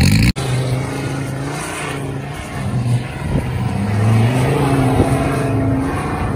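Vehicle engine running under load, its pitch drifting slowly up and down, with a couple of light knocks. The sound cuts in abruptly just after the start.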